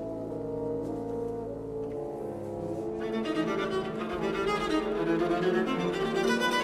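Solo viola and orchestra playing contemporary concert music, bowed strings to the fore: held notes at first, then about three seconds in a denser, louder passage of fast pulsing notes.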